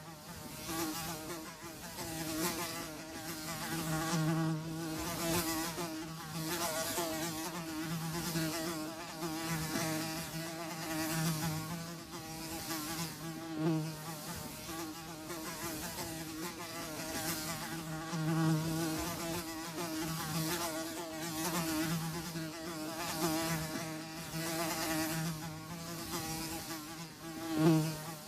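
Flies buzzing: a steady low-pitched drone that swells and fades every second or two as they fly close and away.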